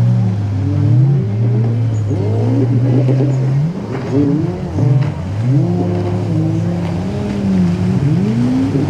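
Jet ski engines running nearby, their pitch rising and falling as the riders speed up and ease off. Several overlap at once, with a steady low drone underneath.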